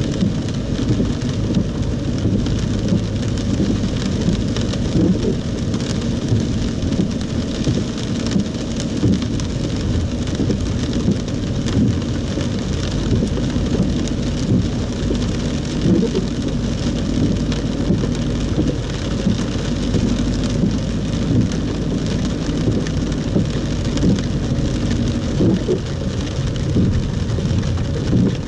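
Heavy rain falling on a car's roof and windscreen, heard from inside the moving car as a steady hiss over a constant low rumble of the car on the wet road.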